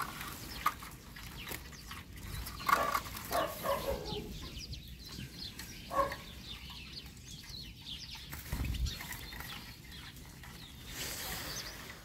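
Small finches fluttering and calling inside a wooden slatted bird trap as it is handled and a European goldfinch is taken out by hand. There are several short, loud calls among the rustling and knocking of the trap, the loudest about three seconds in and again about six seconds in.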